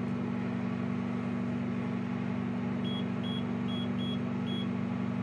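A steady low electrical hum, with five short high beeps from the Kyoritsu KEW 2062BT clamp power meter about three to four and a half seconds in as its keys are pressed to step through the harmonic readings.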